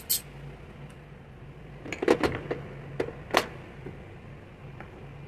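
Chrome ratchet and socket set down into a hard plastic tool case: a quick cluster of sharp metal-on-plastic clacks about two seconds in, then two single knocks about a second later, over a faint steady low hum.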